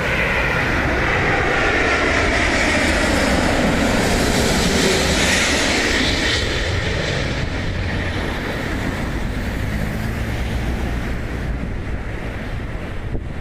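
Jet airliner's engines running as the aircraft passes, with a whine sliding down in pitch; the sound swells to its loudest about five seconds in, then eases off.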